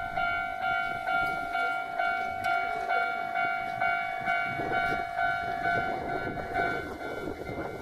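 Japanese level-crossing warning bell ringing, an evenly repeating electronic ding about three strokes every two seconds: the crossing is closed for a train. From about halfway through, the rumble of an approaching Hankyu electric train rises beneath it.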